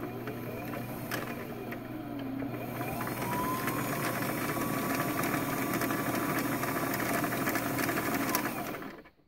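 Brother sewing machine's motor driving the bobbin winder, winding thread onto a bobbin. The whine wavers at first, rises about three seconds in and holds steady, then the motor stops just before the end.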